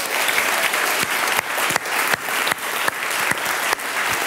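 A large audience applauding steadily, with a few single claps standing out sharper.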